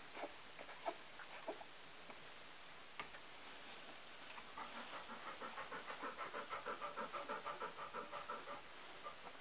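Golden retriever panting rapidly and rhythmically, about five breaths a second, starting about halfway through. Before that, a few light rustles and clicks of wood shavings.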